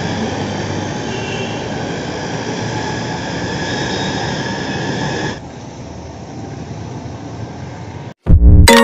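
Loud steady rumble of passing vehicles, dropping to a quieter hiss about five seconds in. Music starts near the end.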